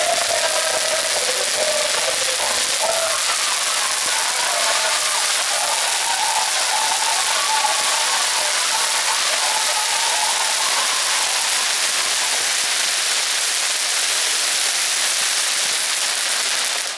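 A burning ground firework flare spraying sparks: a steady, loud hiss that holds unchanged throughout and cuts off sharply at the end.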